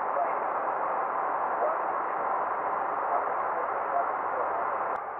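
Steady hiss of a Boeing 737-800 in flight, with no voices on the audio. A single click comes near the end, after which the hiss is a little quieter.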